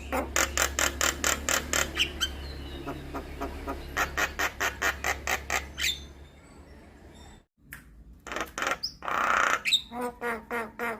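Javan myna calling: runs of sharp, rapidly repeated chattering notes at about six a second, a short lull, then a harsh squawk and more chatter near the end.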